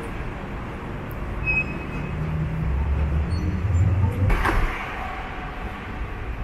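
City main-road traffic: a passing vehicle's low engine rumble swells over a few seconds, with a brief sharp noise near its peak about four seconds in.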